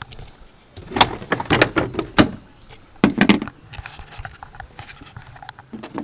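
Sharp plastic clicks, knocks and rattles as the Smart ForTwo's tailgate latch assembly is worked out of the tailgate and handled, densest from about a second in to the middle, then a few scattered taps.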